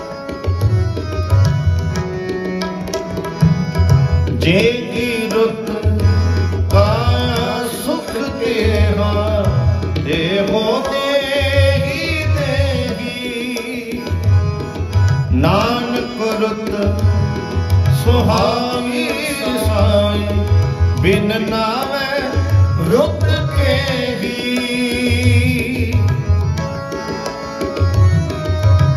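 Gurbani kirtan: two Yamuna harmoniums and a tabla play together, with the tabla's deep bass strokes recurring throughout. A male voice sings long gliding melodic phrases over them.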